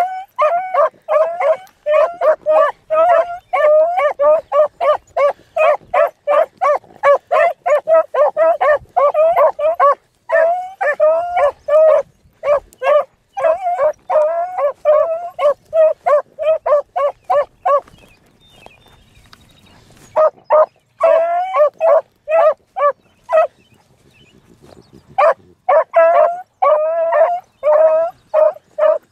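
Young beagles giving tongue while running a rabbit's scent trail: a rapid, steady string of high, short yelping barks, roughly three a second, that breaks off briefly twice and picks up again.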